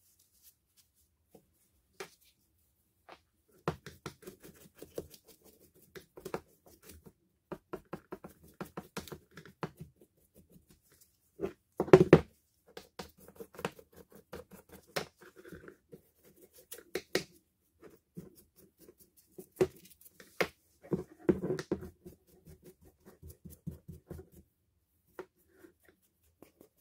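Hands working on a Bosch GSR 14.4 cordless drill's parts: irregular clicks, taps and short scraping sounds of plastic and metal pieces being handled, with the loudest burst of knocks about twelve seconds in.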